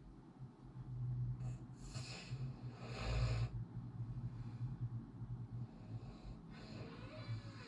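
A person snoring: a long, low buzzing snore from the vibrating soft palate and uvula begins about a second in and is loudest around three seconds, with a softer breathy snore near the end.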